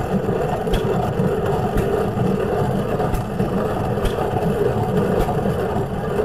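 Hand-cranked cast-iron corn grinder milling shelled field corn, set for a fairly fine grind: a steady crunching grind with a sharp click about once a second as the crank turns.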